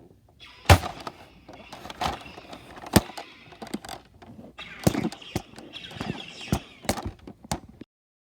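Toy gun firing: a string of sharp bangs, about eight, irregularly spaced, with crackling noise between them, cutting off suddenly near the end.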